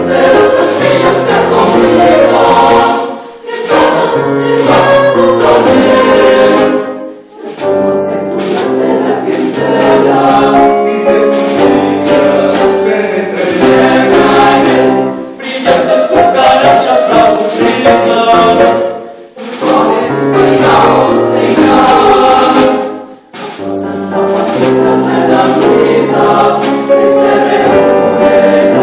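Choral music: a choir singing sustained phrases with accompaniment, with brief pauses between phrases.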